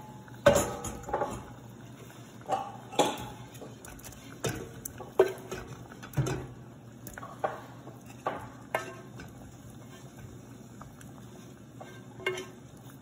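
A wooden spoon knocking and scraping against a nonstick frying pan as paneer cubes are pushed off it into a steel pot of curry, with the pan's rim clinking against the pot. The knocks come irregularly, a dozen or so, thinning out in the last few seconds.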